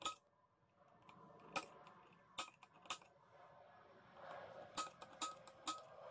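Spring-loaded automatic center punch snapping against a steel plate, marking hole centers: a series of sharp metallic clicks, the last three in quick succession near the end, each leaving the plate ringing briefly.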